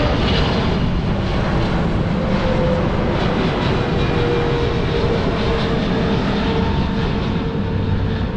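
Jet airliner on final approach passing overhead, a steady loud jet engine noise with a faint held whine.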